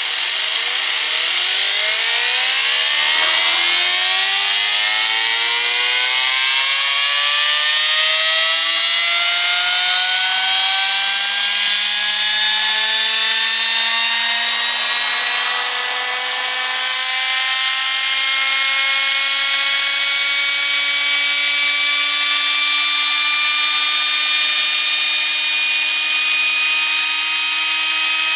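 A small compressed-air Tesla turbine spinning up on air from a 115 PSI tank. A loud rush of air runs throughout, under a whine that climbs fast over the first few seconds and then keeps rising slowly as the turbine gathers speed.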